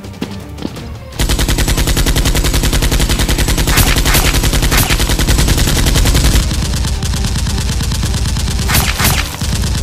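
Rapid automatic gunfire, a fast unbroken rattle of shots starting about a second in and easing slightly past the middle.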